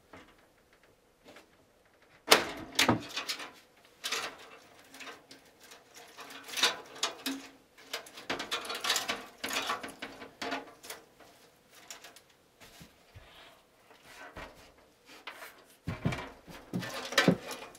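A mid-tower PC case and its side panel being handled: a sharp clunk about two seconds in, then scattered knocks, scrapes and rattles.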